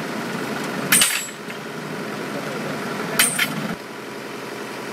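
A drill rig's engine running steadily while a standard penetration test drop hammer strikes the drill rods with a sharp, ringing metallic clang, twice, about two and a half seconds apart. The second blow sounds doubled. The engine's low hum drops in level shortly after it.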